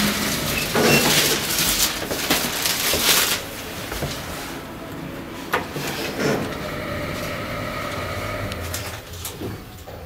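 Otis Gen2 traction elevator heard from inside the car: clattering noise and clicks for the first three seconds, then the level drops and a quieter, steady hum of the running car takes over.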